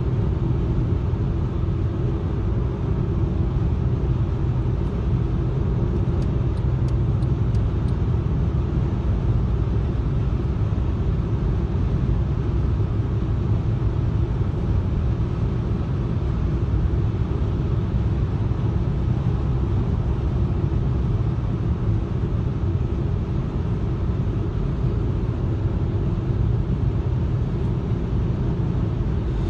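Steady low rumble of tyres and engine heard from inside a car's cabin while driving on a motorway.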